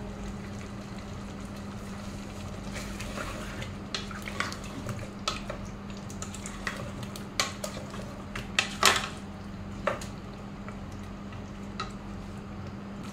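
A wooden spoon stirs a thick potato-and-mutton curry in an aluminium pressure-cooker pot, knocking and scraping against the pot's side at irregular moments, the sharpest knocks a little past the middle. A steady low hum runs underneath.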